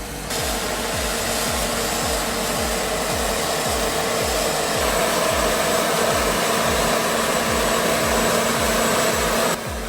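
Large chainsaw with a long bar running at full throttle, a steady high-revving drone that cuts off suddenly near the end. Background music with a steady low beat plays underneath.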